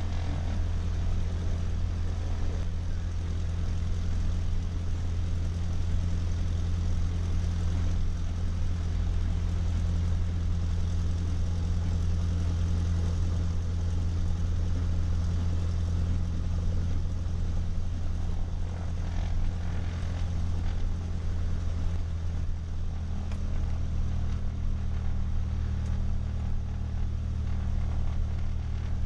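Cessna 152's Lycoming O-235 four-cylinder piston engine running at low power while the aircraft taxis, heard from inside the cockpit as a steady drone. About three-quarters of the way through, the engine note changes slightly.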